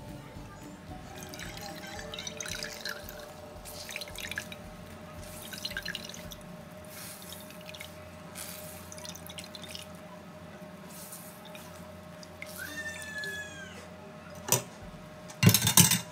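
Water dripping and spattering in irregular bursts as grated raw potato wrapped in paper towel is squeezed by hand over a metal mesh strainer, pressing the starchy water out. Near the end there is a sharp knock and then a louder, short clatter.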